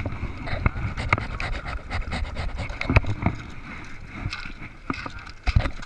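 River cobbles clicking and knocking against one another as people move over and handle stones on a gravel bar, irregular and close, with a few louder knocks about three seconds in and near the end.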